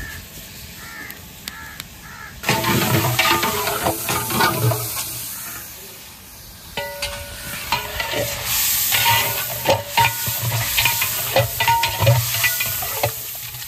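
A long flat metal spatula scraping and knocking against a large aluminium deg (cooking pot) as chicken pieces are stirred in hot oil. The strokes have a metallic ring, over a steady sizzle, in two spells: one starting about two and a half seconds in and a longer one from about seven seconds.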